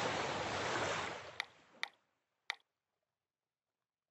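Steady outdoor background noise fading out over about a second and a half, then three short sharp clicks and dead silence.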